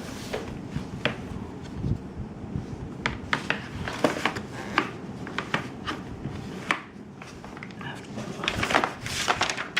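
Plastic parts of a Graco TurboBooster booster seat being handled during assembly: scattered clicks and knocks, a denser cluster near the end.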